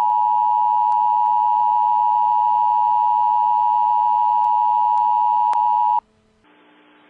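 NOAA Weather Radio warning alarm tone: a single steady beep of about 1050 Hz, held for about six seconds, signalling an alert is about to be read. It cuts off abruptly, leaving faint radio hiss.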